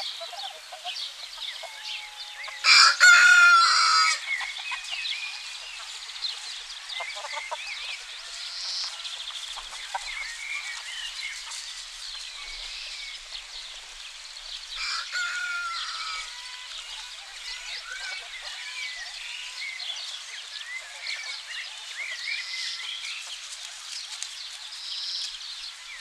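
Rooster crowing, loudly once about three seconds in and again more faintly about fifteen seconds in, with hens clucking and small songbirds chirping steadily in the background.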